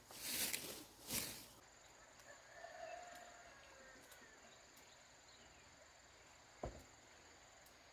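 Steady high-pitched insect trill, with two loud brushing swishes in the first second or so and a short thump near the end.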